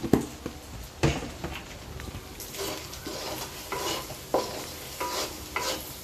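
Wooden spatula stirring egg and chicken frying in a metal wok, scraping and knocking against the pan's sides so that it rings, over a sizzle. Two sharp knocks come in the first second, then a run of scraping strokes about twice a second.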